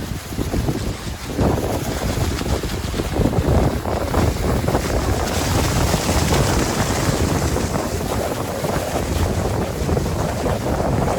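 Strong wind buffeting the microphone in gusts, with the rush of surf on the shore underneath.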